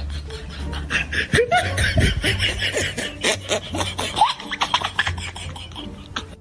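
Cats licking a squeeze tube of lickable treat: a fast run of short wet rasping laps and smacks. A few short squeaky glides sound over it in the middle.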